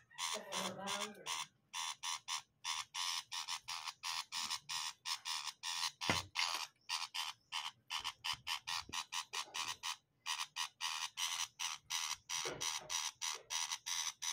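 A bird giving a harsh, rapid chattering call, about three to four notes a second and unbroken. A single sharp knock comes about six seconds in.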